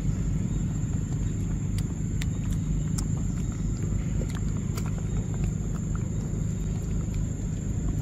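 A steady low rumble, with sharp clicks scattered through it that fit a macaque biting and chewing mangosteen rind close to the microphone.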